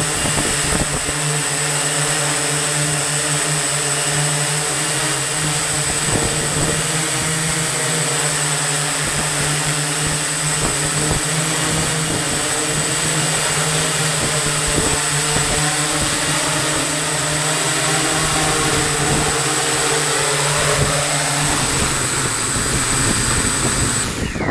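Multirotor drone's electric motors and propellers running, heard from a camera mounted under the frame: a steady whir with a thin high whine. The sound cuts off suddenly near the end as the drone comes down onto the pavement.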